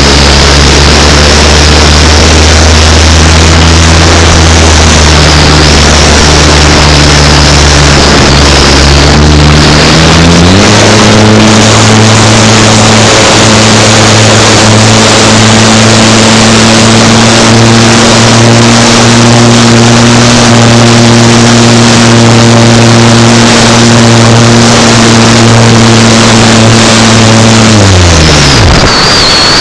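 Loud wind rush on a camera riding a turning windmill sail, with a deep steady hum under it. The hum jumps up in pitch about ten seconds in, then slides down and stops near the end.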